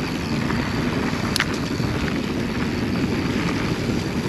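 Mountain bike riding fast down a dirt singletrack: a steady rumble of wind buffeting the on-bike microphone mixed with the tyres rolling over dirt and pine needles. A single sharp click sounds about a second and a half in.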